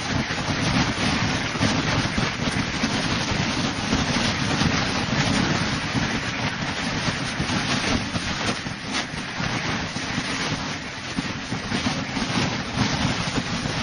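A large flock of domestic ducks quacking together in a dense, continuous chorus, with wind buffeting the microphone.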